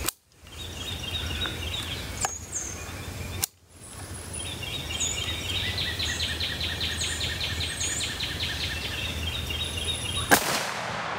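Outdoor background of birds chirping with a rhythmic trill, then near the end a single sharp rifle shot from a .458 SOCOM AR-15.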